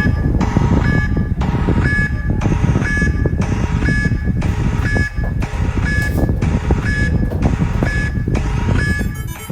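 Emergency alert alarm: a high electronic beep repeating about once a second over a loud, rough rumbling noise.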